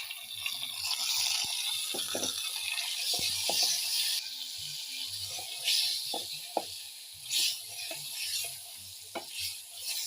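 Tomatoes added to hot oil and fried onions, sizzling in the pan while a spoon stirs and knocks against it. The sizzle is strongest for the first four seconds or so, then settles lower.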